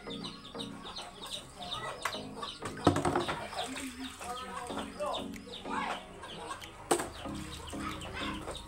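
Birds calling: rapid high chirps over repeated lower clucking calls. Two sharp knocks come about three and seven seconds in.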